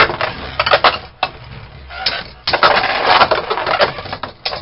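Two spinning Beyblade Burst tops, Erase Devolos and Command Dragon, clattering against each other and the walls of a plastic stadium: a run of sharp plastic clicks and knocks, densest about two and a half to three and a half seconds in.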